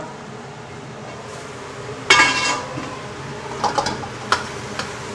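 A metal spatula clanging, scraping and tapping in a wok as chicken in sauce is stirred. One loud clang rings briefly about two seconds in, followed by several lighter clicks and taps.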